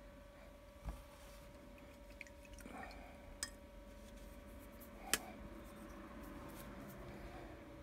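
Quiet room with a steady hum and a few light, sharp clicks and taps, the loudest about five seconds in, over faint rustling.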